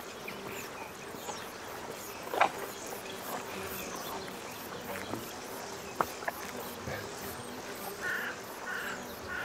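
Flies buzzing steadily around farm animals in summer heat, with a couple of sharp clicks. Short repeated calls, about two a second, begin near the end.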